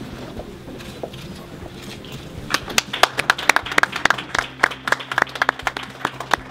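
Small audience applauding. Murmured voices at first, then clapping breaks out about two and a half seconds in and keeps going.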